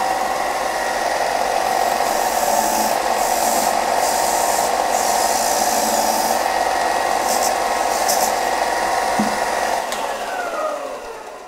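Bench belt-and-disc sander running with its sanding disc spinning while an abrasive cleaning stick is pressed against the disc, adding a rubbing hiss that swells in a few short spells as the stick scrubs the clogged sandpaper clean. About ten seconds in, the motor is switched off and winds down, its pitch falling as it slows.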